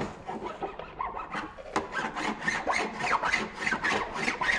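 Hand file rasping back and forth, smoothing down scratches and dog-chewed spots; the strokes start uneven, then settle to about three or four a second.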